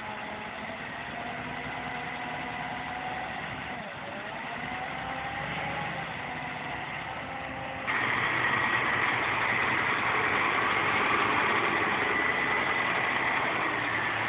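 Diesel engine of a Scania eight-wheel tipper truck running as it drives slowly through deep mud, its pitch dipping and rising again about four seconds in. About eight seconds in the sound gets suddenly louder and stays so, the engine now heard close up.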